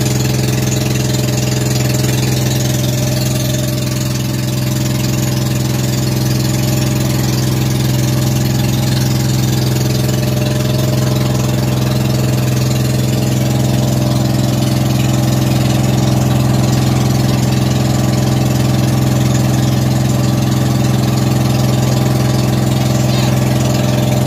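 Outrigger boat (bangka) engine running steadily while under way, a loud even hum that holds one pitch throughout, with a hiss of water and wind over it.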